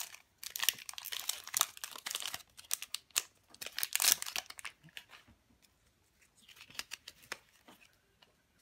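Foil Pokémon booster-pack wrapper crinkling and being torn open: a dense run of crackles for about five seconds, then sparser, quieter rustles.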